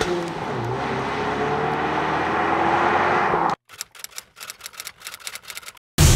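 A Ford Mustang coupe driving away, its engine note rising slowly as it accelerates, cut off suddenly about three and a half seconds in. Then comes a quick run of typewriter-like key clicks, about six a second, followed by a loud whoosh hit at the very end.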